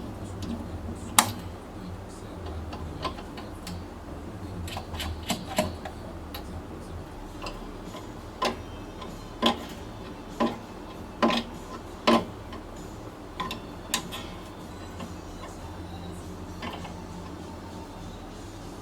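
Irregular series of sharp clicks and knocks, some with a short ring, coming about once a second for several seconds in the middle, over a low steady hum.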